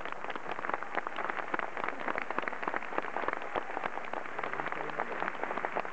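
Crowd applauding: a dense, steady patter of many hands clapping.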